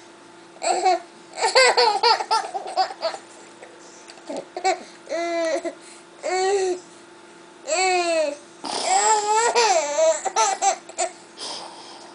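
A baby laughing and squealing in a run of high-pitched bursts that rise and fall in pitch, with short pauses between them.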